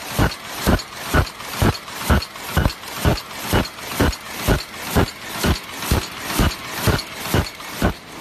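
DEBAO-138S high-speed paper cup machine running, its mechanism beating out a steady rhythm of heavy strokes at about two a second. The rhythm matches one stroke per cup at a rate of around 120 cups a minute.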